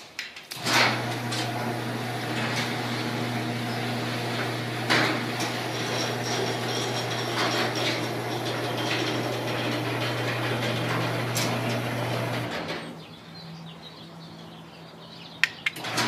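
Rail-type garage door opener running with a steady low hum as a sectional steel garage door rolls open along its tracks, with light clicks and rattles throughout. The opener stops about twelve and a half seconds in. Two sharp clicks come near the end.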